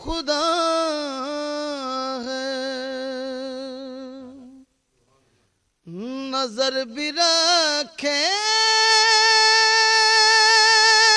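A man singing a naat solo, drawing out long wavering held notes without words. The first note sinks and fades out about four and a half seconds in; after a second's pause the voice returns and climbs to a long, high held note.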